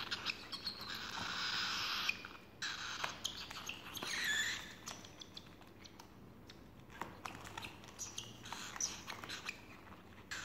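Cockatiel chicks making raspy, hissing begging calls while being syringe-fed, loudest over the first two seconds and again about four seconds in, then thinning to fainter calls and small clicks.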